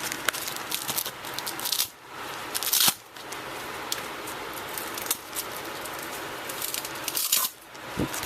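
Tactical knee pads being taken off: rustling and handling of the pads and their straps, with small clicks, and a short loud rasp about three seconds in and another a little past seven seconds.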